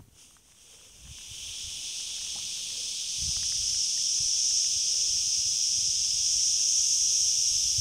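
Chorus of cicadas in pine trees: a steady, high, dense buzz that swells over the first few seconds and then holds.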